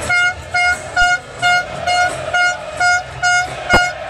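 Handheld air horn blown in short, evenly spaced toots, about two a second, all on the same pitch. One sharp bang comes near the end.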